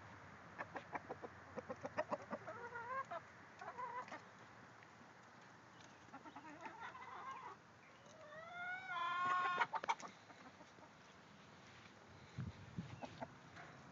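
Chickens clucking: a quick run of short clucks, a few brief calls, then a loud drawn-out squawk rising in pitch about nine seconds in.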